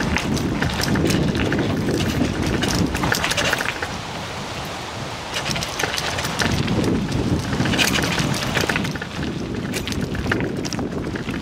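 A bicycle riding along a towpath: tyres rolling and crunching over gravel with many small crackles and rattles, under wind buffeting the microphone. It dips a little about four to five seconds in.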